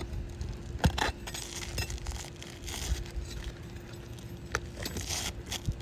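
Scattered sharp clicks and crinkling from asphalt shingles and roofing tools being handled, the loudest click about a second in, over a steady low rumble.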